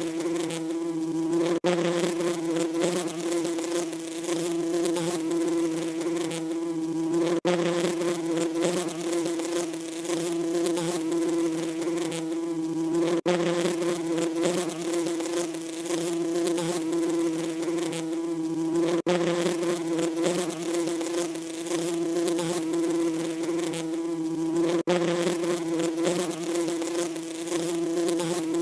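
Bees buzzing in a continuous, steady drone with a constant hum and a hissy upper edge. Brief dips about every six seconds show the track is a repeating loop.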